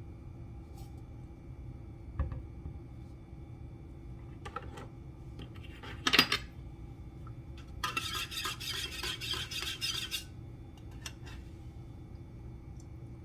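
Spoon and cup clinking while sweetening coffee: a knock, a few light clicks and a sharp clink, then about two seconds of quick, rapid clinking as the spoon stirs the syrup into the coffee.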